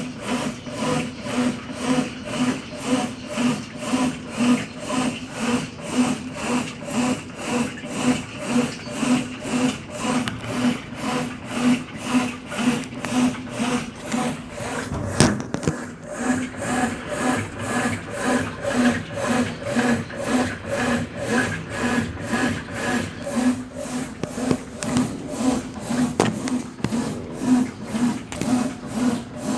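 Consul Facilite 10 kg top-load washing machine agitating after a mechanical overhaul: the motor and transmission swing the agitator back and forth in an even, rubbing rhythm, a little under two strokes a second. There is one sharp knock about halfway through.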